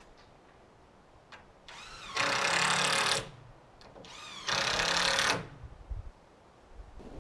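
Handheld power driver run twice, each time spinning up and then running steadily for about a second before stopping, as when driving fasteners into framing.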